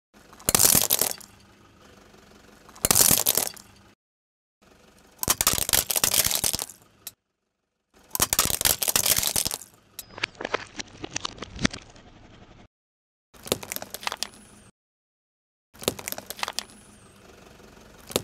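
A car tyre crushing small brittle objects, a patterned bowl and coloured plastic tubes among them, in a series of short clips: about seven bursts of cracking and crunching, each cut off abruptly.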